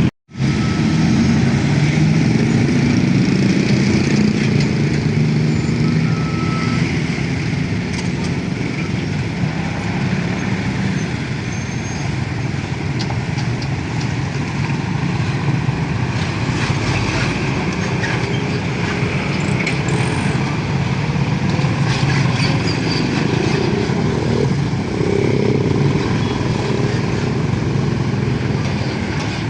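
Road traffic with heavy vehicle engines running steadily. The low engine sound is strongest for the first ten seconds or so, then eases.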